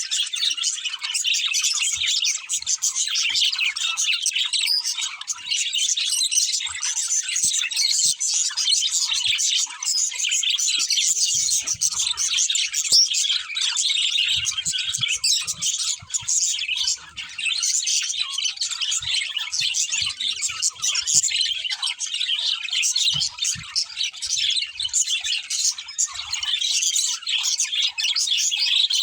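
Budgerigars chirping and chattering without a break: a dense, steady stream of high twittering calls.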